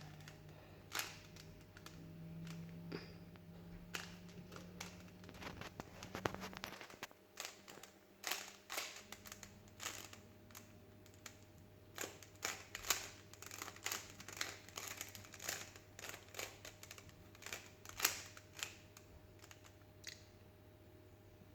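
Rubik's cube being twisted by hand: irregular plastic clicks and clacks as its layers turn, coming in quick flurries, over a low steady hum.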